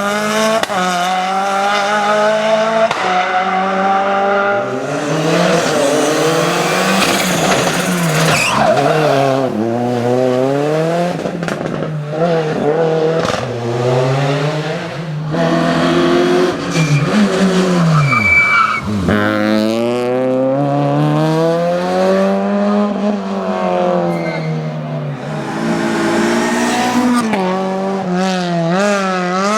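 Rally car engine run hard, its pitch climbing and dropping again and again as the driver accelerates and shifts gear, with a brief high squeal a little past the middle.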